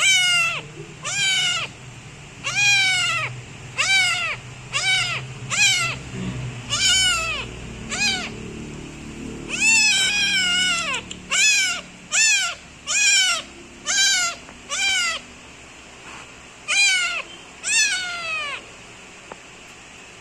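A kitten meowing loudly and insistently, about once a second. Each meow is a high call that rises and then falls in pitch, with a couple of short pauses near the end.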